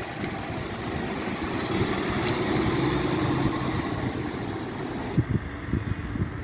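Diesel engine of a double-decker bus pulling away, its steady drone swelling and then fading. A few dull thumps come near the end.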